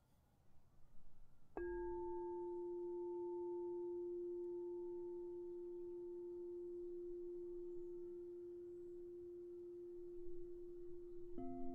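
Crystal singing bowl struck once about a second and a half in, ringing on in one clear, steady tone with a fainter higher overtone and slowly fading. Near the end a second strike sets off a lower tone.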